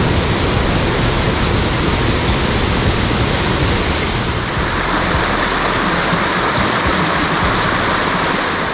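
Rushing water of a mountain headwater stream, a steady loud hiss close to the microphone that turns brighter and more splashy about halfway through.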